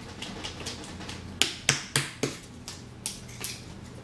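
Plastic squeeze bottle of jalapeño cheese sauce being shaken and squeezed, giving a run of sharp clicks and pops, four loud ones in quick succession about halfway through.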